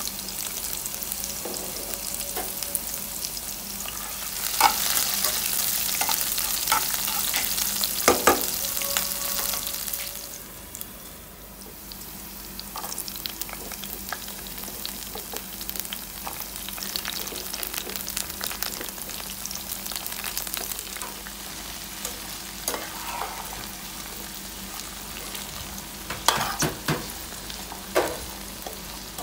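Onion slices, then puishak (Malabar spinach) flower buds with green chillies, sizzling as they fry in hot oil in a pan, while a spatula stirs them with sharp clicks and scrapes against the pan. The sizzle is loudest from about four to ten seconds in, then settles to a quieter, steady sizzle.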